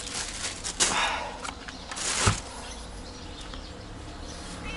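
Rustling handling noise close to the microphone in two short bursts, the second ending in a sharp knock about two seconds in. A faint steady low hum follows.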